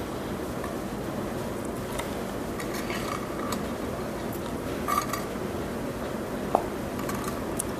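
Hands coating plantain halves in batter in a glass baking dish: scattered light clinks and taps against the glass, the loudest about five seconds in, over a steady background hum.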